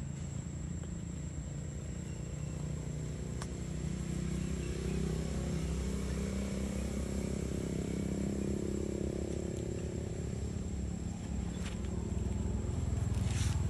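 Low rumble of engine traffic, growing louder about four seconds in, with a thin steady high tone above it and a few faint clicks.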